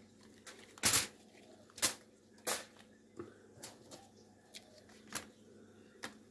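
Aluminium foil crinkling in short, sharp, irregular snaps as spring onion stalks are laid onto a foil-lined tray of fish, the loudest snap about a second in.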